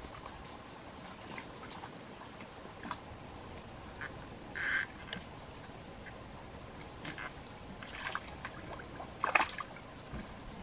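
A few irregular splashes and trickles of water, the loudest near the end, over a steady high insect drone.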